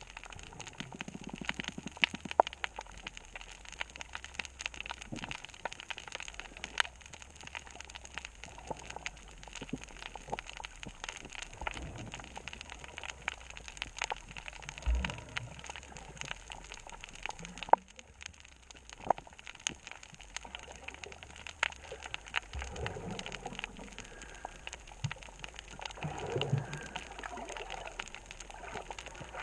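Underwater ambience on a coral reef: a steady crackle of scattered sharp clicks. A few low, rushing gurgles come in the last few seconds.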